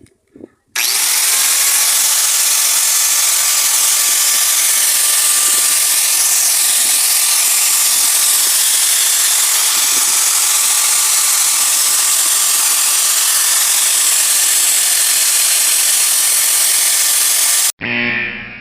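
Electric angle grinder running under load, its abrasive disc working metal in one long, steady, hissing pass. It starts abruptly about a second in and cuts off near the end.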